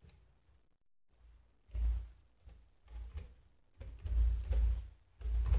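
Computer keyboard keystrokes, slow and scattered: a few short clusters of taps with pauses between them, typing a word.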